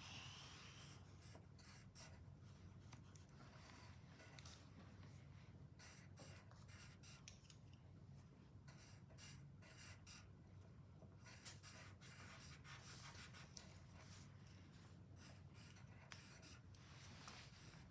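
Faint pencil scratching on paper in many short, irregular strokes as small zigzag teeth are drawn.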